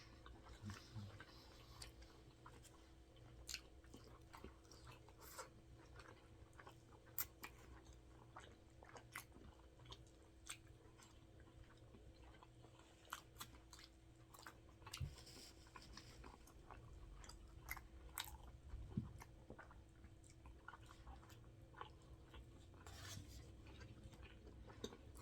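Faint chewing and biting of a cheeseburger, with soft scattered mouth clicks over a low steady hum.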